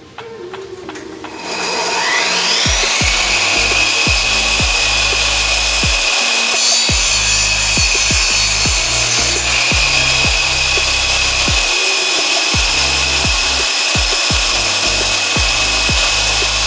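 Electric saw's motor spinning up with a rising whine about two seconds in, then running steadily while cutting 45-degree angles in wooden trim boards.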